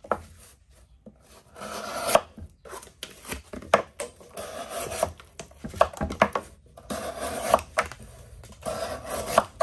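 Civivi Badlands Vagabond pocketknife slicing through one layer of cardboard in about half a dozen strokes. Each stroke is a rasping scrape that ends in a sharp crack as the cardboard parts.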